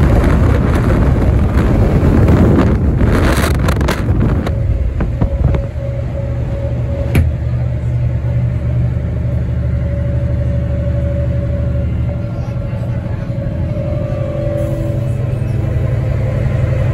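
Riding aboard a 1990s Sydney city bus under way: for the first few seconds wind buffets the microphone at the open window over the road noise, then the bus's engine drones steadily inside the cabin with a faint steady whine. One short click about seven seconds in.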